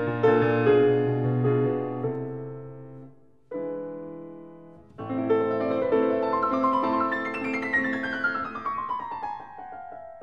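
Background piano music in a classical style: ringing chords fade away, new chords come in about three and a half seconds in and again at five seconds, then a run of notes descends near the end.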